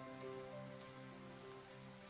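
Soft background music of held, overlapping notes, fading gradually.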